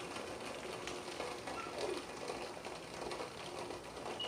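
Heavy rain pouring down, a steady hiss with a couple of faint short squeaks.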